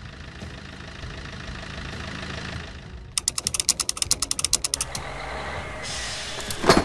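A crane vehicle's engine running steadily, then a rapid ratcheting clatter of about ten clicks a second for a second and a half as the crane's winch pays out cable and lowers the hook. A steady hiss follows, and a loud knock comes at the very end.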